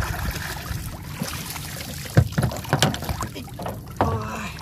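Knocks and bumps on the hull of a small boat as a man handles a bamboo pole against it and climbs aboard, several sharp knocks coming a little past the middle. Underneath runs a steady low rumble of wind on the microphone.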